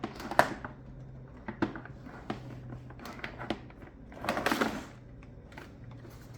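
Plastic highchair parts being handled and fitted together: scattered short clicks and knocks, with a longer scraping rustle about four seconds in.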